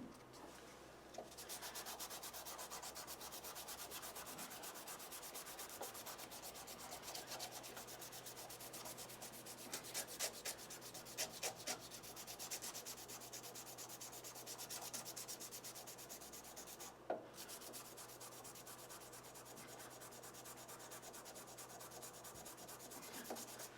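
Sandpaper rubbed rapidly back and forth over the plastic scale of a Victorinox Swiss Army knife, grinding away an advertising print. The sanding starts about a second in and pauses briefly about two-thirds of the way through.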